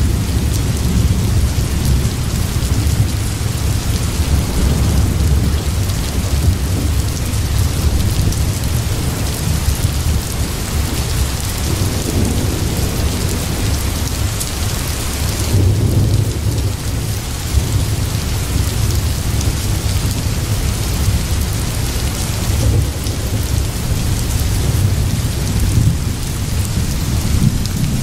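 Steady rain with a continuous low rumble of thunder, used as an ambience track.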